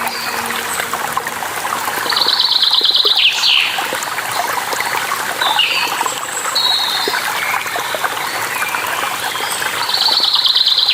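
Steady rushing water of a waterfall with several birds singing over it, including a pulsed trill about two seconds in and again near the end, and scattered short chirps in between.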